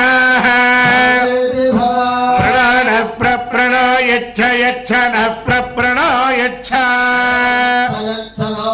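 Vedic Sanskrit mantras chanted in a sung style, with long held syllables that waver gently in pitch and short breaks between phrases.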